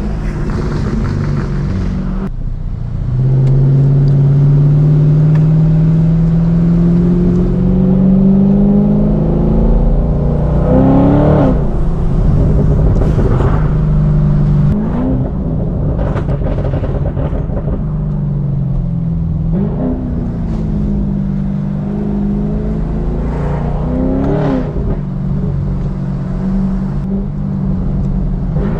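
Chevrolet Camaro's engine running under way, its pitch climbing steadily for several seconds as the car accelerates, then a series of short revs that rise and fall about every four seconds.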